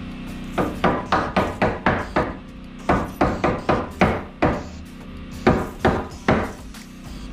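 Hammer driving nails into wooden wall framing: three runs of quick blows, several strikes in each, with short pauses between.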